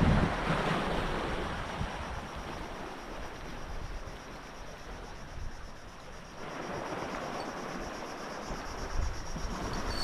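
Wind buffeting the microphone: a gusting rush with a low rumble that eases in the middle and picks up again about two-thirds of the way through.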